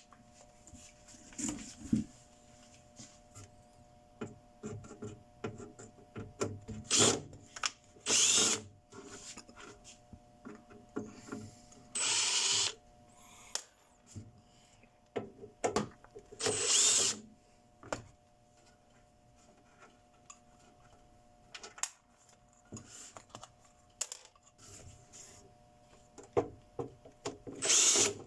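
A power drill-driver running in about five short bursts, each under a second, the kind made when backing screws out of an inverter welding machine's casing to open it. Small clicks and rattles of handling come between the bursts.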